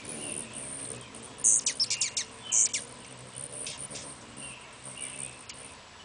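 Hummingbirds at a nectar feeder: a quick burst of sharp, high chips about one and a half seconds in, and a few more near the middle, over a faint low wing hum.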